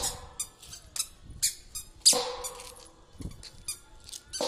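A toddler's squeaky shoes squeaking as she steps, a quick uneven series of short squeaks, the loudest about two seconds in and again at the end.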